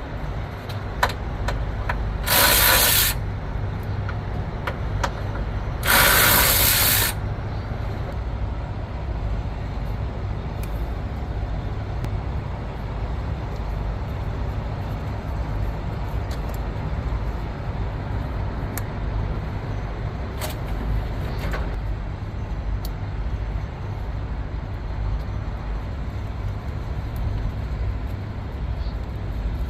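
Steady low rumble around a 2014 International truck, broken by two short, loud hisses about two and a half and six seconds in, with scattered light clicks between.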